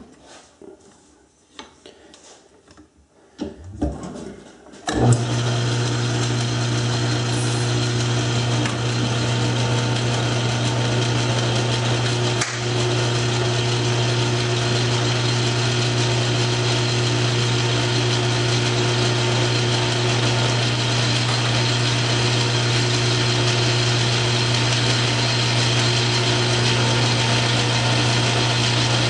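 South Bend metal lathe starting up about five seconds in, after a few knocks, then running steadily with a low hum at raised speed while the tool takes a cut on the spinning part.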